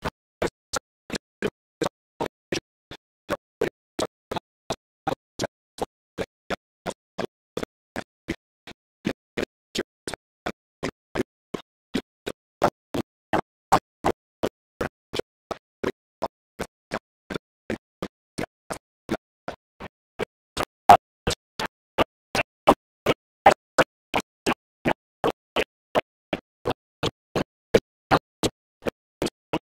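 A steady train of short clicks, about three a second, with silence between them.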